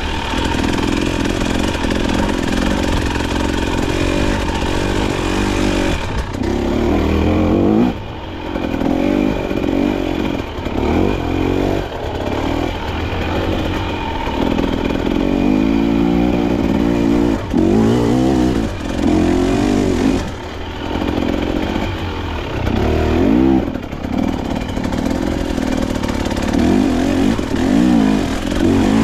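KTM off-road motorcycle engine under load on a steep trail climb, its revs rising and falling over and over as the throttle is worked.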